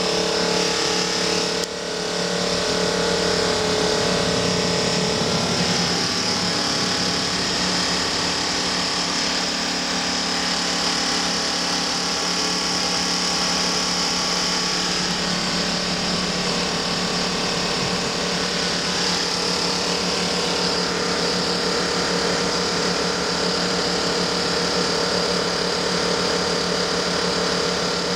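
Annoying noise in a Mercedes-Benz O 405 city bus: a steady fast buzzing rattle with a high whine over the bus's running drone.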